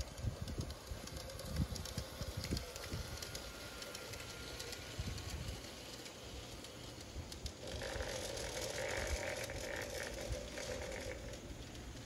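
G scale model train rolling along garden track, its wheels clicking over the rail joints. It grows louder about two-thirds of the way through as it runs across the welded steel truss bridge, then eases off near the end.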